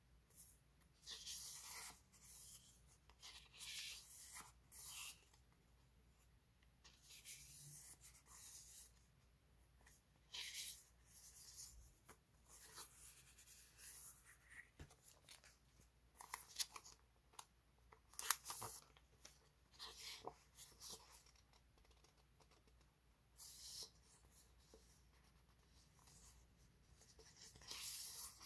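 Sheets of printed paper rustling and sliding against one another as they are picked up and handled, in short irregular crinkles with the odd sharper tap.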